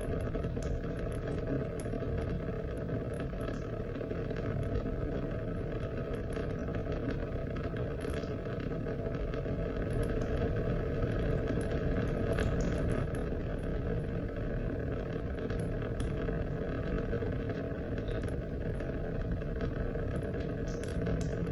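Steady, continuous rain noise with scattered sharp drip ticks.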